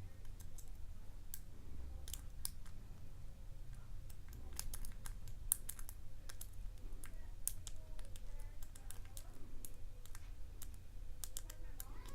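Irregular small metallic clicks of a lock pick working the pin stacks of a custom-pinned padlock held in a false set, over a low steady hum.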